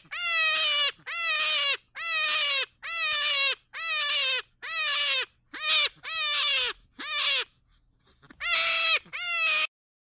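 Hare calling: a string of about eleven loud, high cries, each about half a second long and falling slightly in pitch, with a short pause near the end.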